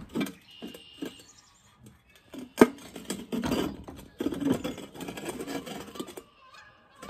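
Irregular knocks and scraping as the homemade longtail mud motor's steel frame and engine are handled and shifted, with one sharp clank about two and a half seconds in. The engine is not running.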